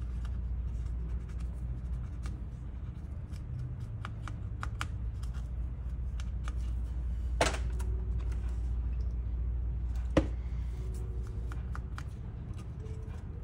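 Foam-tipped swab scrubbing old thermal paste off a chip on a circuit board: a run of light scratchy rubbing with scattered small ticks. Two sharper clicks stand out, about seven and a half and ten seconds in.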